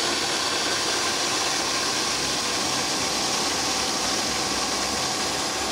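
BWD5-40 stainless-steel variable-speed booster pump running hard at high flow, about 6,000 litres an hour at 2.5 bar on about 1.1 kilowatts. It makes a steady rushing hiss of water through the pipework and valves, with a faint steady whine.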